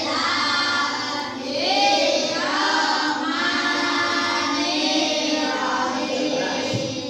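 A class of schoolchildren reciting a prayer together in unison, in a sing-song chant that runs in continuous phrases.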